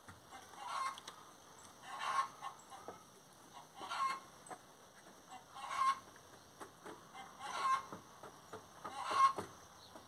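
Chickens clucking: short calls repeating every one and a half to two seconds, six in all.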